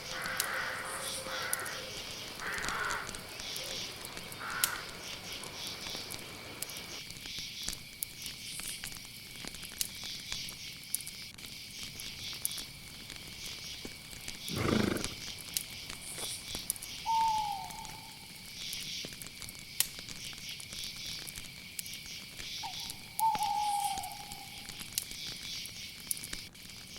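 Night ambience of crickets chirring steadily, with one short low animal call about halfway through and a bird's short falling call a few times in the second half.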